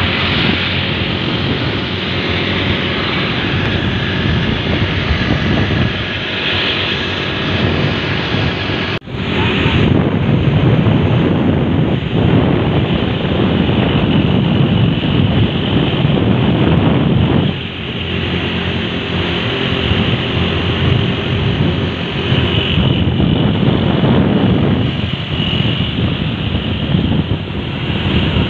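Wind rushing over the microphone on a moving motorcycle, with the motorcycle's engine running underneath. There is a brief break about nine seconds in.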